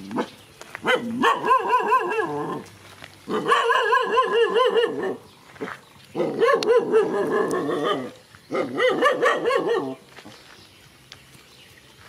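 A dog barking and yelping in four runs of about two seconds each, the pitch wavering quickly up and down; the calling stops about ten seconds in.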